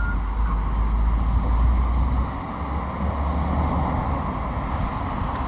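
Lorry driving past close by: a deep engine rumble with tyre and road noise, loudest about two seconds in, over steady traffic.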